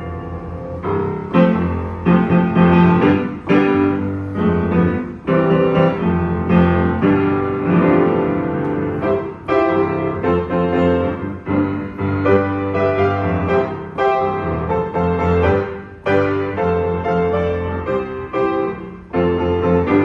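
Yamaha U3A upright piano being played: a run of full chords struck one after another over a sustained low bass, ringing on between attacks.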